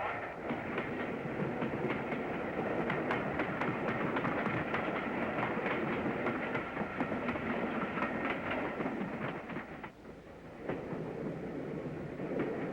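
Steam-hauled express train running at speed, its wheels clicking over rail joints. The sound drops briefly about ten seconds in, then resumes.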